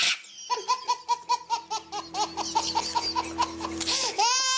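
A baby laughing hard, a rapid run of short ha-ha bursts about five a second, breaking into a rising squeal near the end.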